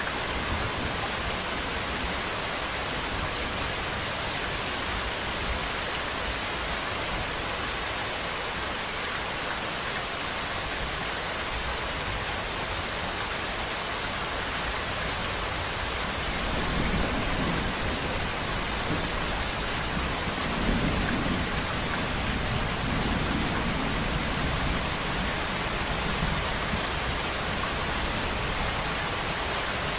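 Steady rainfall, an even hiss of drops falling on surfaces. A low rumble swells in and out through the second half.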